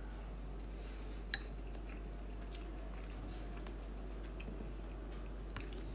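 A metal fork clinks once against a bowl about a second in, with a few fainter light ticks of cutlery over a steady low hum.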